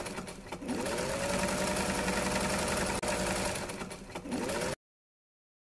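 Electric sewing machine running as it stitches a zip onto fabric: the motor slows and winds back up about half a second in, runs at a steady speed, slows and picks up again near the end, then the sound cuts off abruptly into silence.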